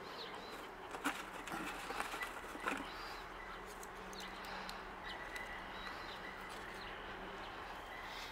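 Faint outdoor background noise with a few light clicks and knocks in the first three seconds, and a faint, steady high tone in the second half.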